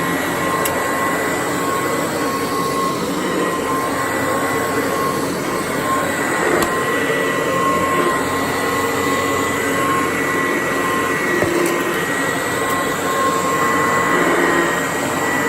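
Kirby 561 upright vacuum cleaner running on carpet, a steady whir with a high, even whine over it, its suction strong enough to pull the rug up.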